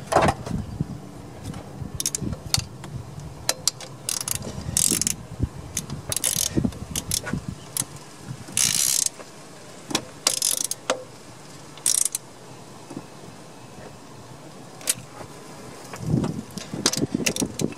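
Hand socket ratchet clicking in short runs of strokes, with pauses between, as the 12 mm mounting nuts of a new EGR valve are run down.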